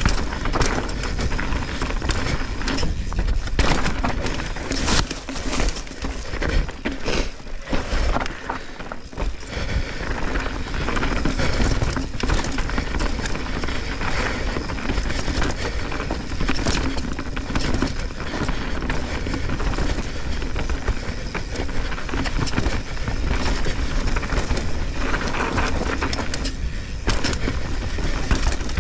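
Mountain bike descending a dirt singletrack: wind rushing over the microphone and tyres rolling on dirt, broken by frequent sharp clatters as the bike hits bumps. The noise eases off for a moment a few seconds before the middle.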